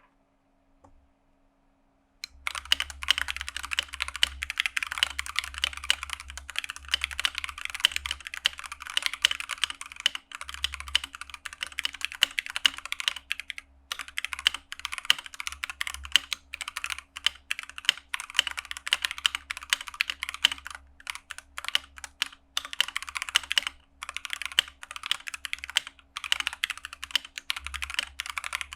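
Akko 3068B mechanical keyboard with Akko Jelly Black linear switches, typed on fast and continuously in a dense stream of keystrokes. The typing starts about two seconds in.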